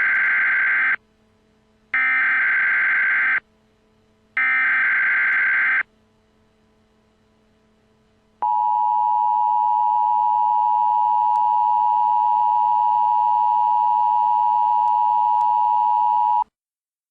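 Emergency Alert System header: three short bursts of SAME digital data tones, each about a second and a half with short gaps between, the first already under way. Then the steady two-tone EAS attention signal, held for about eight seconds and cutting off suddenly.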